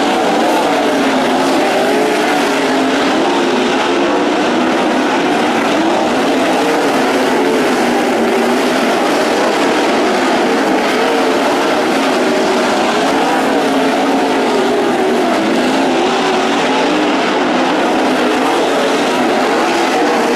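Several sprint car engines racing together, their pitches rising and falling as they run the laps.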